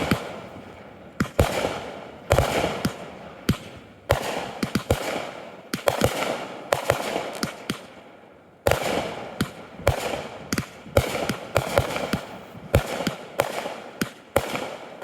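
Fireworks bursting overhead: a rapid, irregular string of sharp bangs with crackling in between, easing into a short lull a little past halfway before the bangs pick up again.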